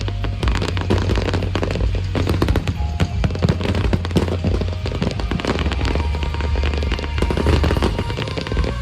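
Large display fireworks going off in a dense, continuous barrage: deep booming bursts under a steady rapid crackle. Music plays along with them.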